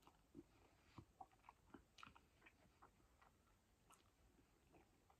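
Faint mouth sounds of a person eating black bean noodles: scattered small wet clicks of chewing and sucking in noodles.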